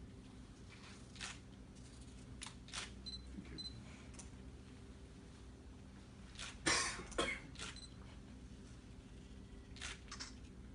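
Camera shutters clicking at irregular intervals, with the loudest run of clicks about seven seconds in, over a low steady room hum. Two faint short high beeps sound around three seconds in.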